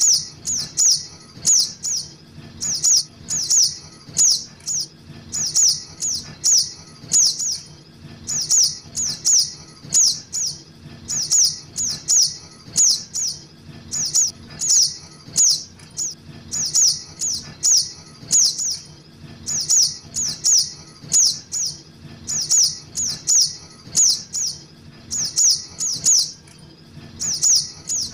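Juvenile sogok ontong calling: short, sharp, high chirps that slide downward, repeated over and over in quick pairs and triplets, used as a lure call.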